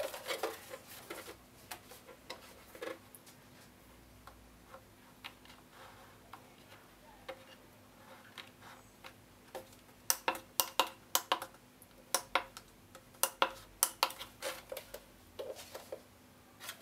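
Sharp clicks and taps of a HuanYang VFD's plastic case and keypad being handled, a few scattered at first, then in quick runs about ten seconds in and again a few seconds later.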